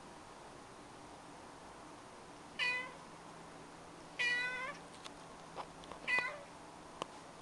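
Domestic cat meowing three times: a short meow, a longer one about a second and a half later, and another short one near the end, each dropping slightly in pitch.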